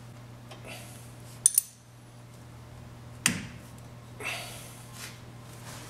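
Metal wrench clinking against the brake bleed fittings as the bleed screw is closed: two quick sharp clinks with a short ring about a second and a half in, another clink a little after three seconds, then a brief rustle.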